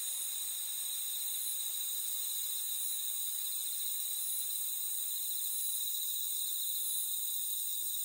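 Chorus of autumn insects, crickets among them, trilling steadily at several high pitches. A faint, very high chirp repeats about every one and a half seconds.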